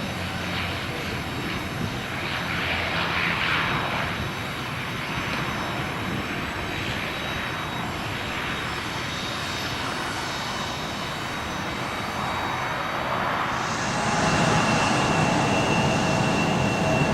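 SIAI Marchetti SF-600 Canguro's engines running, growing louder about three-quarters of the way through, when a steady whine comes in over the engine noise.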